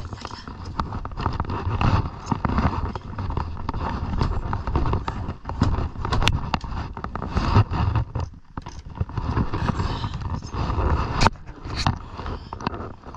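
Claw hammer scraping and tapping on wooden deck boards, with a few sharp knocks, one about halfway through and two close together near the end, over a low rumble.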